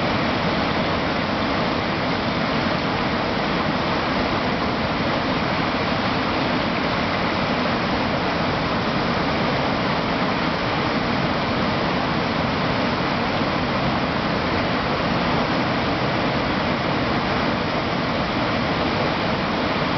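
Shallow river water flowing past a rock, a steady, unbroken rushing.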